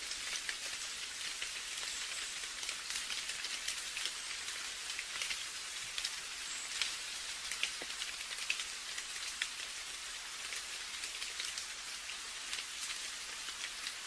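Steady rain falling on a surface, a dense high hiss with many separate drops ticking sharply through it.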